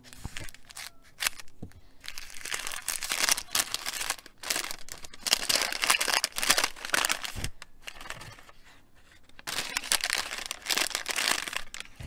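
A few scissor snips through a thin paper bag, then the paper crinkling and rustling as it is torn and opened, in three long stretches with short pauses between.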